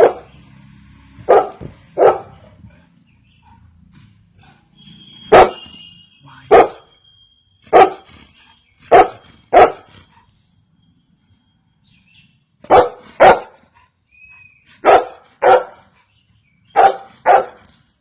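A golden retriever barking: about a dozen short, sharp barks, many in quick pairs about half a second apart, with a pause of a couple of seconds past the middle.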